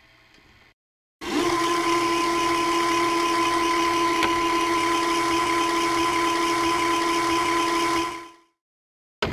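A sampled sound from the VHS Synth app played and held: a steady hiss with two steady tones through it, lasting about seven seconds before it fades out, then a short sound near the end.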